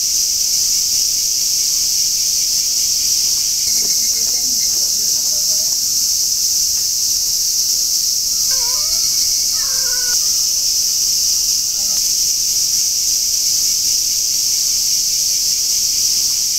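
A dense chorus of cicadas droning steadily, high-pitched and unbroken, with faint distant voices about four seconds in and again around nine to ten seconds.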